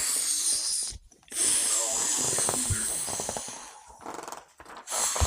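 Cartoon inflation sound effect: air hissing in three long stretches, broken by short pauses about a second in and again near the end.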